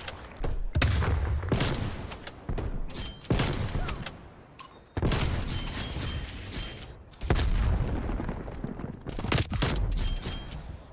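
Video game gunfire: repeated bursts of automatic weapon fire with heavy low booms, coming in waves a second or two apart, the longest burst running for about two seconds midway.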